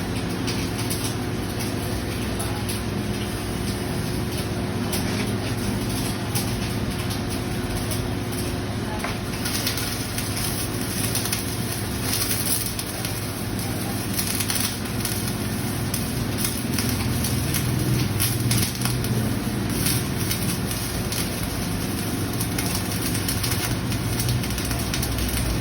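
Flux-cored arc welding: a steady, continuous crackle of the welding arc, with a low hum underneath.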